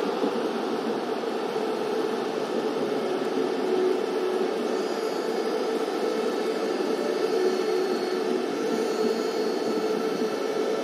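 Steady static-like noise with a faint hum.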